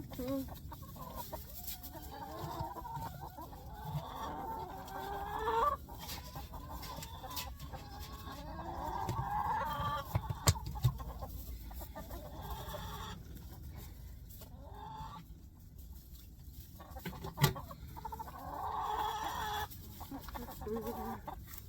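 Hens clucking, with drawn-out calls that rise and fall in pitch. A few sharp knocks come about halfway through and again later.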